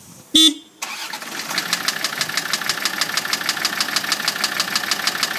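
Land Rover Td5 five-cylinder turbodiesel that starts about a second in after a brief loud whine, then idles with a fast, regular knocking whose cause the owner does not know.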